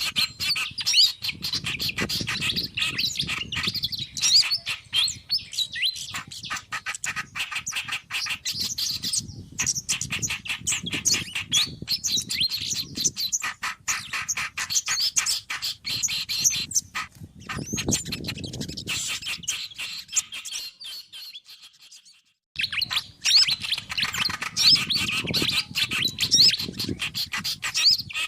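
Bird-lure recording of several small songbirds calling at once (kerak basi, sikatan kipas, sogon and kemade mixed together), a busy chatter of rapid chirps, trills and clicks. It fades out about twenty seconds in and starts again abruptly a couple of seconds later.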